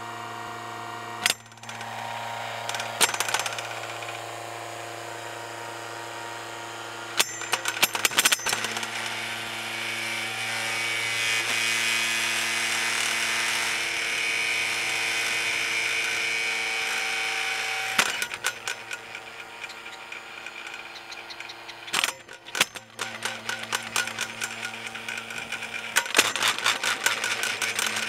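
JCB Loadall telehandler running as its boom lifts, giving a steady hum that grows louder and higher in the middle, with rattling knocks several times.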